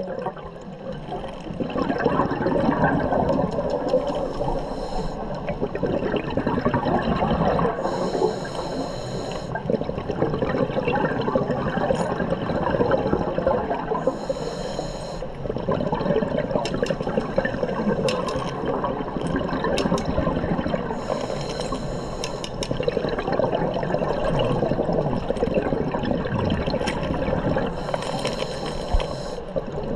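Underwater breathing through a scuba regulator, with hissing breaths coming about every six to seven seconds and a continuous rush and gurgle of exhaled bubbles.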